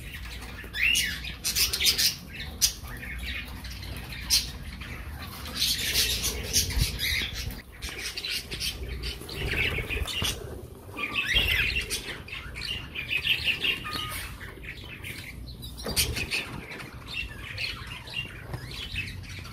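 Canaries and other aviary birds chirping and calling, with a repeated trilled phrase around the middle and scattered sharp clicks and rustles.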